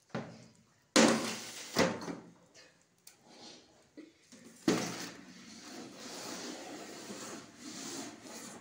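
Plastic spin-mop bucket knocked and pushed across a tiled floor. There are sharp knocks about a second in and again near two seconds, another knock just under five seconds in, then a steady scraping as it slides along.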